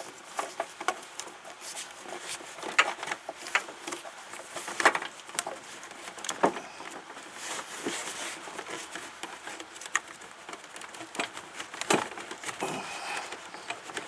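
Scattered, irregular clicks and knocks of hand tools and a spring hose clamp being worked in a car's engine bay with hose clamp pliers.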